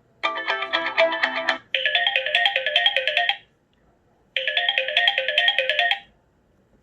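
Samsung Galaxy J7 Star ringtone playing: a quick run of bright, bell-like notes, then a fast repeating chiming figure that stops and, after a short pause, plays again.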